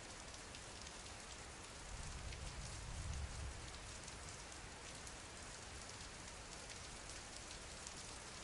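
Steady rain falling, a soft even hiss flecked with the patter of drops, with a low rumble swelling about two to three and a half seconds in.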